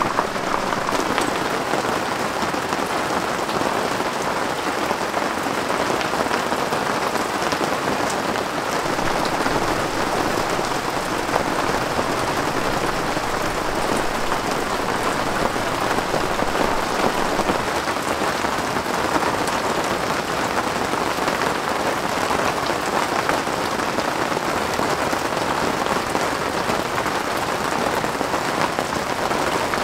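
Steady rain falling on a canvas tent, heard from inside, with a constant dense patter and scattered single drops.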